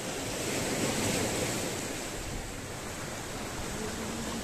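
Sea waves washing against a rock breakwater, a steady rush of surf that swells about a second in and then settles.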